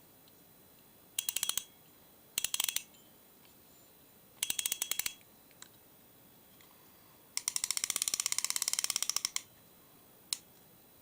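The ratchet of an Angler Ranger 666-A fixed-spool spinning reel clicking in quick runs. There are four short bursts of rapid clicks, the last and longest lasting about two seconds, then a single click near the end.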